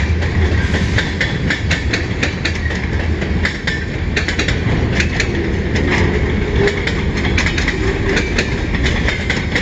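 Freight train cars rolling past, their steel wheels clicking over rail joints in an irregular run of clicks over a steady low rumble.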